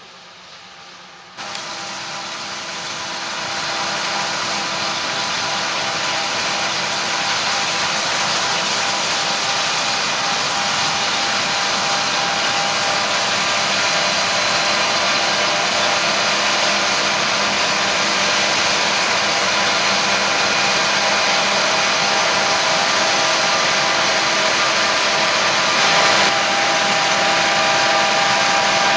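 Harvest machinery running steadily under load: a heavy diesel engine with several steady whining drive tones over a broad hiss. It cuts in abruptly about a second and a half in, swells over the next couple of seconds, then holds steady.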